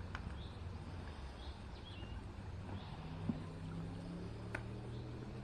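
A small bird repeating a short high call note, roughly once a second, over a low steady drone, with one sharp click about four and a half seconds in.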